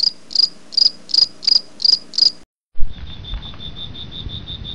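Crickets chirping: a run of evenly spaced high chirps, about two and a half a second, stops. After a sudden thump a little under three seconds in, a faster, slightly lower trill carries on steadily.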